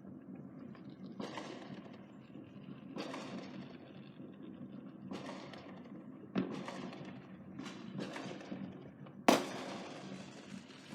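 Fireworks going off one after another: about eight bangs, each trailing off in a crackling hiss, with one sharp, much louder bang about nine seconds in.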